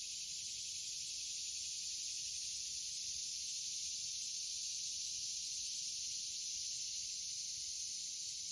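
Steady, high-pitched hiss of a summer insect chorus in the woods.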